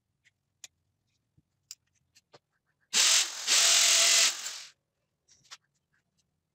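Corded electric drill boring into a plastered wall: a short burst about three seconds in, then a longer run of about a second that trails off. Scattered small clicks and taps come before and after.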